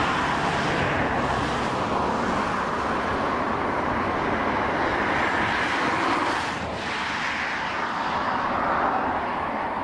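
Boeing OC-135B's four turbofan jet engines running as the aircraft rolls slowly along the runway: a steady rushing jet noise that dips briefly about two-thirds of the way through, then builds again.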